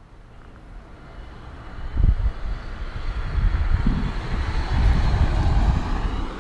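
A motor vehicle running, with gusts of wind buffeting the microphone; it grows louder over the first two seconds, then holds steady.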